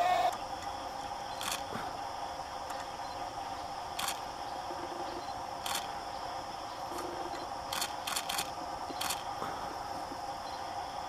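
Camera shutter clicks, about seven in all, mostly a second or more apart, with a quick run of three about eight seconds in, over a steady background drone.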